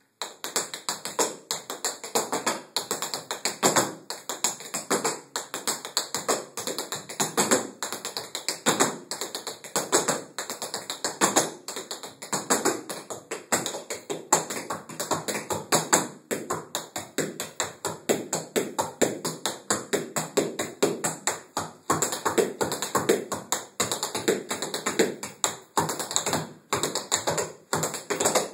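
Tap shoes striking the floor in fast, rhythmic runs of sharp clicks: a choreographed tap dance routine, with brief breaks between phrases.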